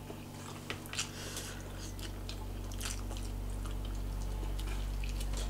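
A person biting and chewing food held in the hand, close to the microphone: scattered wet mouth clicks and smacks, over a steady low hum.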